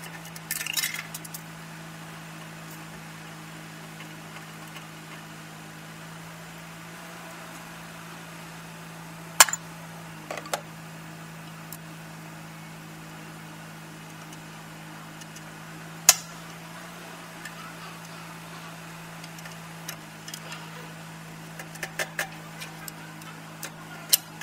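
Metal tools and parts clinking in a diesel engine bay as hands work around the turbo: a few sharp clinks, spaced out, with a small cluster near the end, over a steady low hum.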